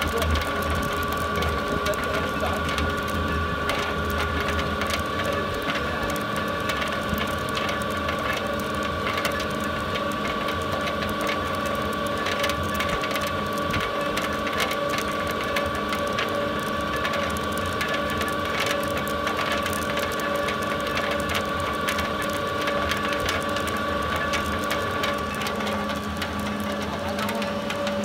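Small electric flat-die biomass pellet mill running steadily while pressing out pellets: an even mechanical hum with a steady high tone and a continuous rapid clicking rattle.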